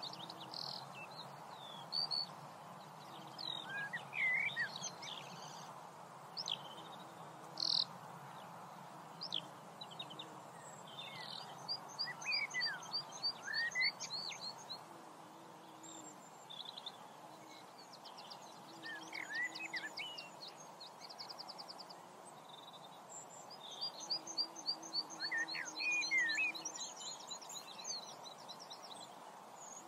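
Songbirds singing and calling: scattered short chirps and whistles, with two runs of rapid trilled notes, one about twelve seconds in and another near twenty-four seconds, over a steady background hiss.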